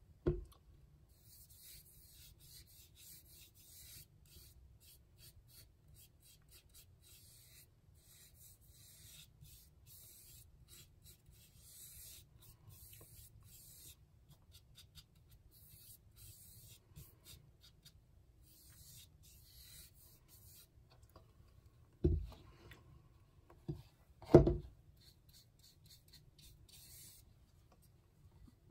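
Paintbrush rubbing paint onto a canvas in soft, scratchy strokes. Near the end come a few sharp thumps, the loudest sounds.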